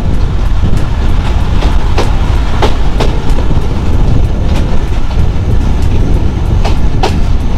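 Passenger train running, heard from on board: a loud, steady low rumble with sharp clacks of the wheels over the rail joints, a few each second.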